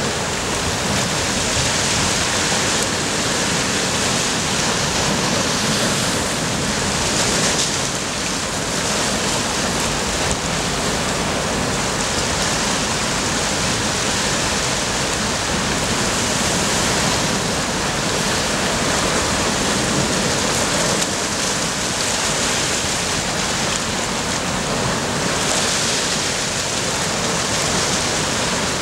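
Sea surf washing over a rocky shore: a steady rushing hiss that swells louder now and then as waves break.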